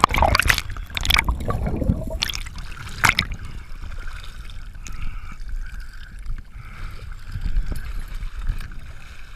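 Water splashing as the camera breaks the surface, with several sharp splashes in the first three seconds, then quieter sloshing and trickling at the waterline.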